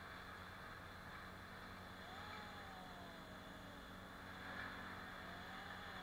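Faint, steady engine hum with a thin whine that rises and falls twice, from about two seconds in and again near the end.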